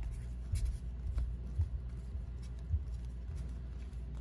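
Baseball trading cards being handled and flipped through, with a few soft low thumps and light ticks over a steady low hum.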